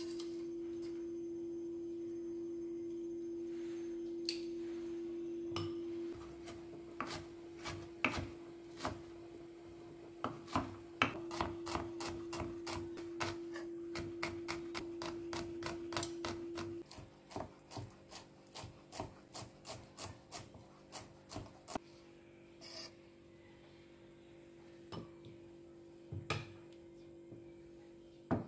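Kitchen knife slicing shallots on a wooden cutting board: quick, uneven chopping strokes from about six seconds in, settling into a steady run of about one and a half cuts a second. A steady low hum runs underneath and is strongest in the first few seconds.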